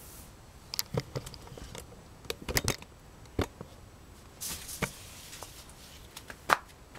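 Irregular clicks and rustles of raspberry leaves and canes being handled, with a brief soft rustle about halfway and a sharper click near the end.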